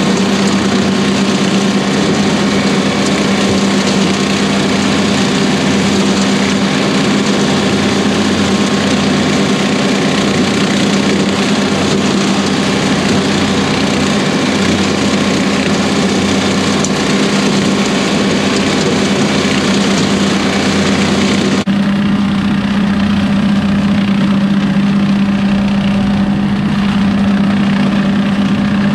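John Deere 2038R compact tractor's three-cylinder diesel running steadily at working speed, with its PTO-driven rotary cutter chopping through dry corn stalks. About three-quarters of the way through, the high hiss drops away abruptly and the hum sounds duller.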